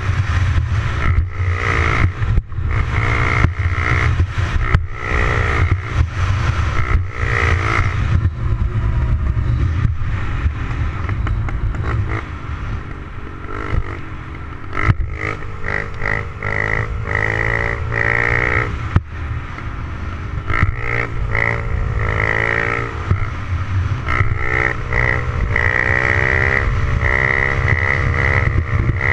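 Honda CRF70's small single-cylinder four-stroke engine revving up and dropping back again and again as the bike rides along, with a steady low rumble of wind on the microphone and short knocks in the first several seconds.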